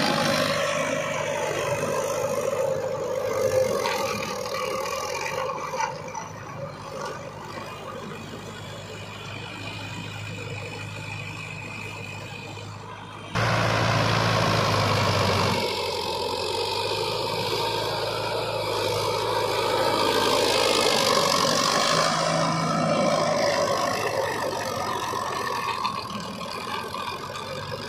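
Sonalika tractor's diesel engine running under load as it pulls a rotavator through wet paddy soil, with the level jumping abruptly about thirteen seconds in.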